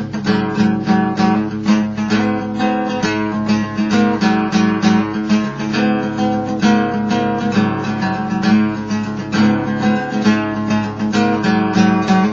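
Acoustic guitar played with a pick: a continuous run of quickly picked notes and strums.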